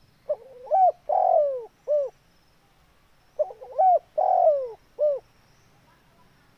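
Spotted dove singing its cooing song: two phrases about three seconds apart, each a few quick rising-and-falling notes, a longer falling coo and a short closing note.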